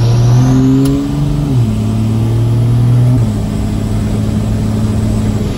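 Dodge Ram's 5.9 Cummins diesel engine pulling down the road, heard from inside the cab. Its note steps down in pitch twice, about one and a half and about three seconds in.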